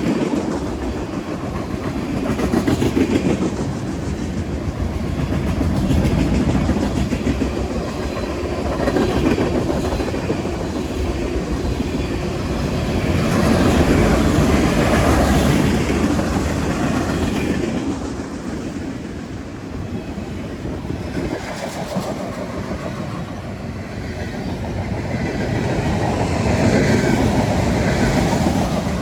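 Freight train cars rolling past, a steady rumble of wheels on rail with clickety-clack, swelling and easing every few seconds.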